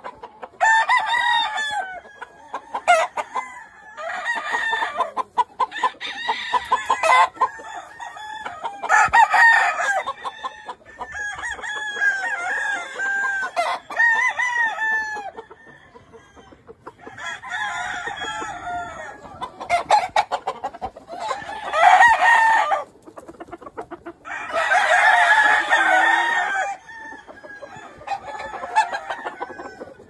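Gamefowl roosters crowing, one call after another and often overlapping, with clucking between the crows.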